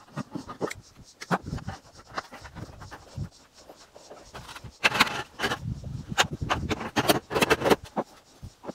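Irregular knocks, clanks and scrapes, with the loudest clusters of sharp clatter about five seconds and about seven seconds in.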